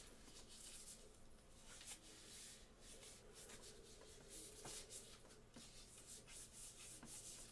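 Near silence: room tone with faint, scattered scratching and rustling.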